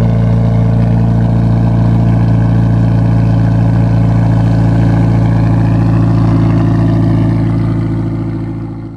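Straight-piped Acura RSX four-cylinder engine idling steadily through its freshly repaired exhaust, the flange joint reattached with a coupler and JB Weld. The engine note holds a constant pitch, then fades near the end.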